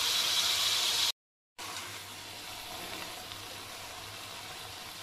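Marinated pork steak slices sizzling as they pan-fry in hot oil, a steady hiss. It cuts out abruptly for half a second about a second in, then comes back quieter.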